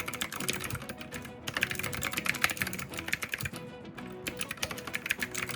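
Clicky blue mechanical key switches under plastic keycaps on a budget 65% keyboard, typed rapidly in runs of sharp clacks with short pauses between them.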